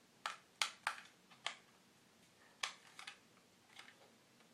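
Irregular sharp clicks and taps of hard plastic toy packaging being handled, about eight in all, bunched in the first second and a half and again around three seconds in.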